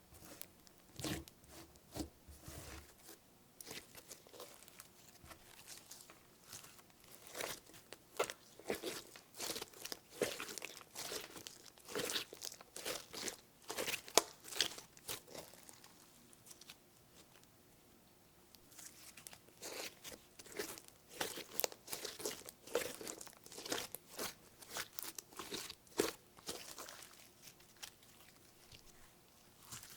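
Hands squishing and kneading slime coloured with eyeshadow, giving irregular clicking, crackling pops of trapped air, with a short lull partway through.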